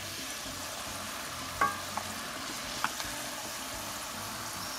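Corn tortillas deep-frying in oil in a cast-iron skillet: a steady sizzle. A few light clicks of a spatula against the pan come about one and a half to three seconds in.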